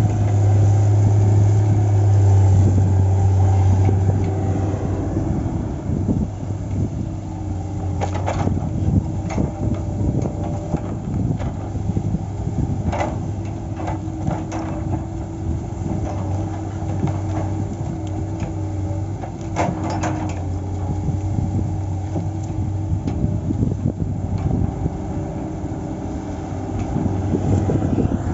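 Diesel engine of a log-loading machine running steadily with a strong low hum that eases a few seconds in, with scattered knocks and clatters in the middle as pine logs are loaded onto a truck.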